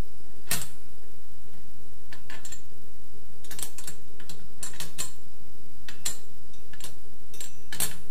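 A chrome wire basket clicking and clinking against the metal upright of a pull-out bottle rack as it is fitted and hooked on: a handful of sharp, irregular metal clicks, with a louder one about half a second in and another near the end.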